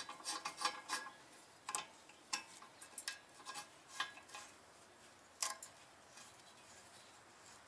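Steel claw-puller jaws clinking and scraping against the rear wheel spindle and stuck bearing race as the puller is fitted: a quick run of metallic clicks, then single sharp clinks spaced roughly a second apart.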